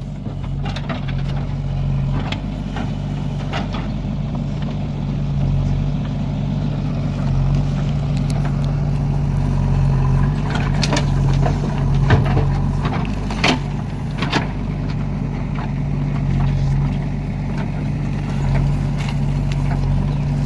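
Heavy diesel machinery engine running steadily under load during earth loading. Several sharp metallic knocks come through about halfway in.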